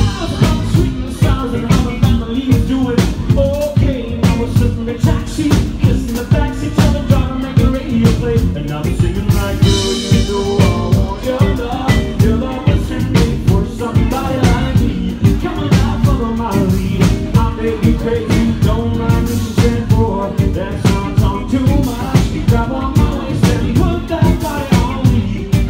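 Live band music with a male and a female singer over a drum kit and electric guitar, the drums keeping a steady beat.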